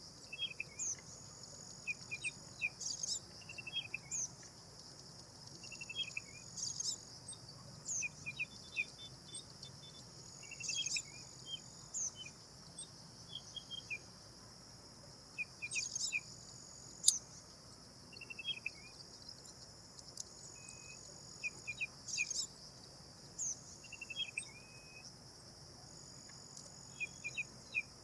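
Black drongo calling in short groups of quick chirps, falling notes and clicks, repeated every second or two, over a steady high buzz of insects.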